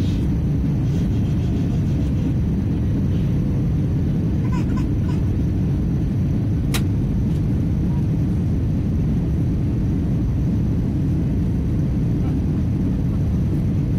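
Steady low rumble of engine and airflow noise inside the cabin of an Airbus A319 airliner on its descent to land. A single sharp click about seven seconds in.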